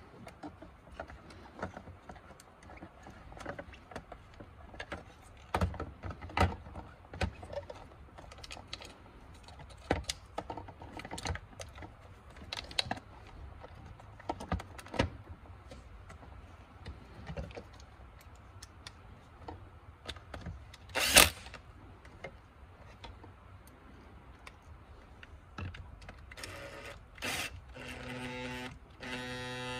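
Hard plastic parts of a car side-mirror assembly clicking and knocking as they are handled and fitted together, with one loud sharp click about two-thirds of the way through. Near the end a cordless drill-driver whirs steadily, driving a screw into the mirror housing.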